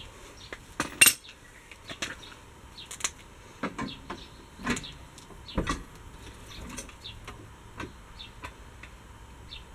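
Irregular metal clinks and knocks from handling tools and wheel hardware during a car tyre change, a dozen or so separate strikes with the sharpest about a second in.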